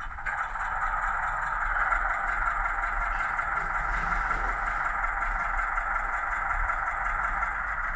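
Digitrains sound file for a Ruston 48DS diesel shunter, played by a Zimo MX648R DCC sound decoder through a small speaker in the model's cab: the diesel engine runs steadily, getting a little louder just after the start.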